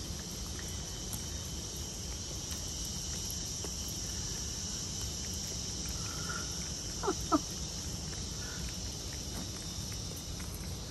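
Steady high-pitched insect chorus, like crickets, with a low background rumble and faint scattered clicks from flying fox tongues lapping at mango. About seven seconds in, two short gliding calls stand out above it.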